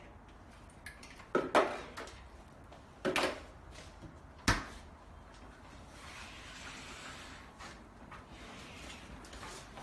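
Knocks and clacks of a solar refrigerator's door and handles being handled: a couple of clattering knocks, then one sharp knock about halfway through, followed by a soft rustling noise.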